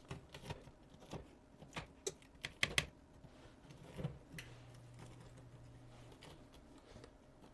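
A knife cutting and scoring cracker dough on a baking sheet: light, irregular clicks and taps, thickest in the first three seconds, with a few more later. A faint low hum comes in for a couple of seconds in the middle.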